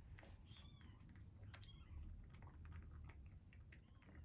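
Faint, high mews from young kittens, three short arching calls, over soft clicking as a kitten suckles milk from a nursing bottle.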